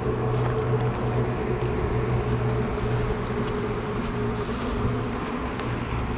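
A steady low mechanical hum, with a constant outdoor noise behind it.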